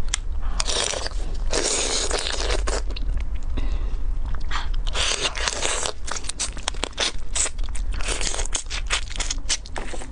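Close-miked eating: biting, crunching and chewing through raw marinated crab, in clusters of crunches and sharp clicks, over a steady low hum.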